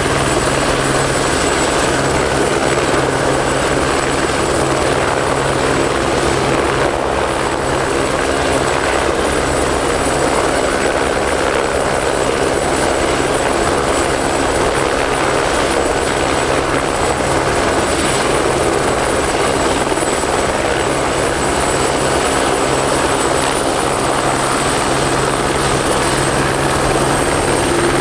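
Loud, steady engine drone of a moving vehicle, with a constant low hum and a thin high whine.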